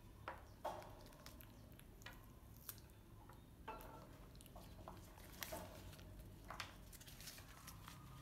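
A baby macaque biting and chewing a fresh lotus seed pod: faint, irregular crunches and wet clicks, a few times a second at most.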